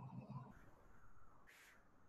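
Near silence: room tone, with a faint low murmur at the start and a brief soft hiss about one and a half seconds in.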